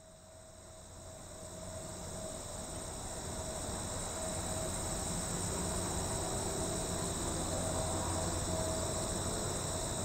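Insects chirring in a steady high, even drone, over a low rumble that swells over the first few seconds and then holds.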